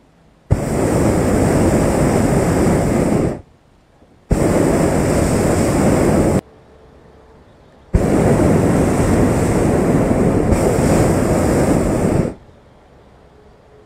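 Hot-air balloon's propane burner firing in three blasts of about three, two and four seconds, each starting and stopping abruptly.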